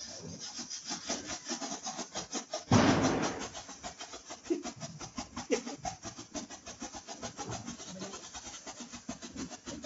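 A "camera bomb" Diwali firecracker burning on the ground, fizzing with rapid crackles of about eight to ten a second. A louder burst comes about three seconds in.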